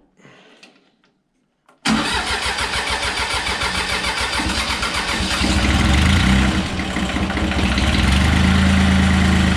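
Iseki compact diesel tractor engine starting: it catches suddenly about two seconds in and runs steadily, growing louder about three and a half seconds later.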